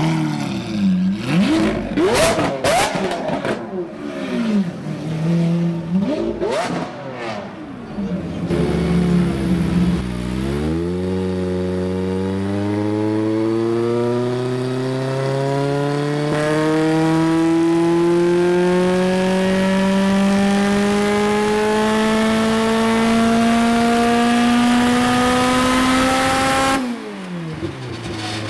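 Liberty Walk Lamborghini Aventador's V12 being blipped repeatedly, rising and falling in pitch, with sharp cracks among the revs. Then, after a cut, a race car's engine on a hub dyno makes one long full-throttle pull, rising steadily in pitch for about sixteen seconds before cutting off sharply.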